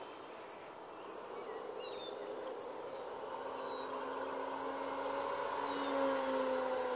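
Electric RC aerobatic plane in flight, its brushless motor and 12x6 propeller giving a droning whine that shifts in pitch and grows louder as it passes closer about six seconds in.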